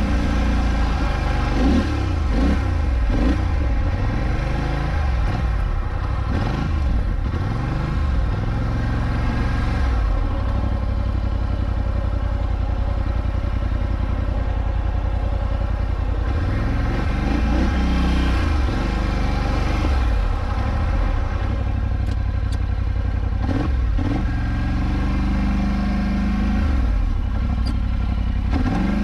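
Polaris Scrambler XP 1000 ATV's twin-cylinder engine revving up and easing off repeatedly as the quad is driven through shallow water and mud. The revs rise and fall quickly through the first several seconds, hold steadier in the middle, and climb again in a few short pulls near the end.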